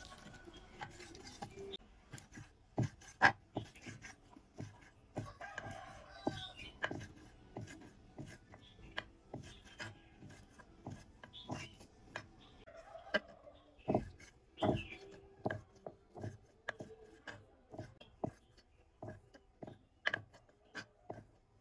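Irregular knocks and clicks of hands-on food preparation, with chickens clucking now and then in the background.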